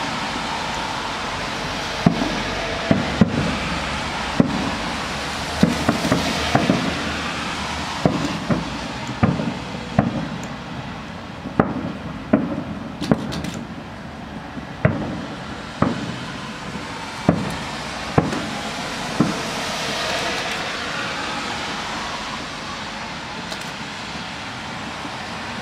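Aerial firework shells bursting, a series of irregularly spaced sharp bangs over steady background noise. The bangs stop a few seconds before the end.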